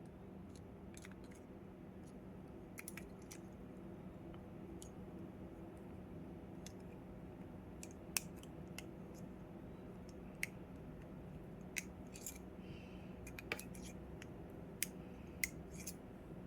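Light, irregular metallic clicks and taps of small balisong knife parts (handle, washers and pivot) being handled and fitted together during reassembly, about a dozen over the stretch, over a faint steady hum.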